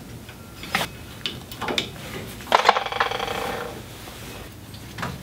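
Light metallic clinks and a short rattling scrape of a hand tool against the rear brake hub and parking brake shoe hardware. There are a few separate taps, then a longer scrape with a ringing edge about two and a half seconds in.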